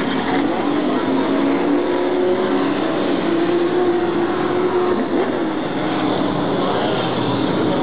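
Race car engines running on the oval track: a loud, steady blend of several engine notes that shift in pitch as the cars go by.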